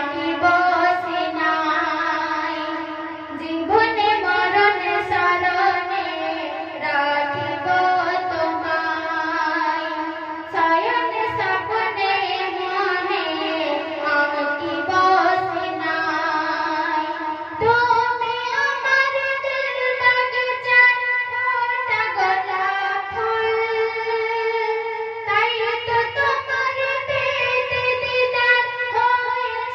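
A woman's voice singing a Bangla gojol (Islamic devotional song) solo, in long drawn-out notes with a wavering, ornamented melodic line.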